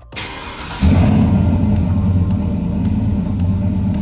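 Truck engine starting: a brief crank, then it catches a little under a second in and settles into a loud, steady idle.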